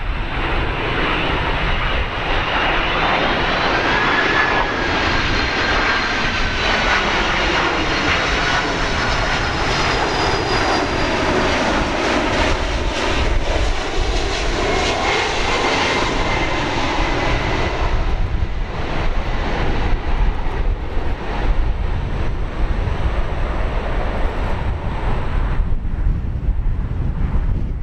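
Twin-engine jet airliner passing close by: a loud engine rush with a fan whine that drifts slightly downward in pitch. After about eighteen seconds the high hiss fades away, leaving a low rumble.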